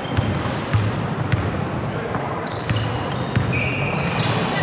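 Basketball play on an indoor court: a ball bouncing on the floor several times, with short high squeaks of sneakers, over the steady background noise of the hall.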